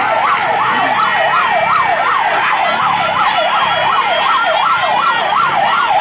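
Vehicle siren sounding a fast yelp, its pitch sweeping up and down about three to four times a second.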